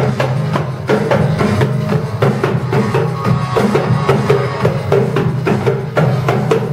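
Loud dance music with a steady drum beat and bass, played over a loudspeaker.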